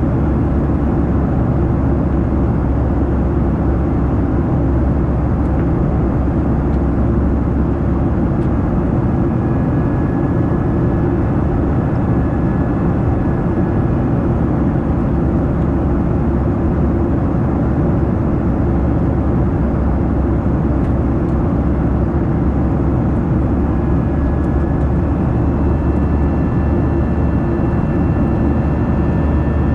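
Steady roar of an airliner's jet engines and airflow heard from inside the cabin during the climb after takeoff, with a faint high whine that comes and goes.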